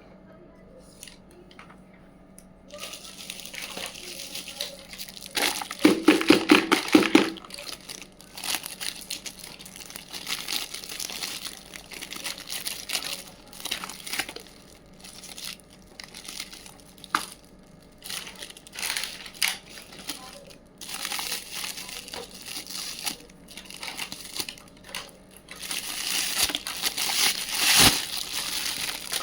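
Packaging being handled while a miniature toy kitchen set is unboxed: crinkling and rustling in irregular bursts. It starts about three seconds in, is loudest around six seconds in, and is busy again near the end.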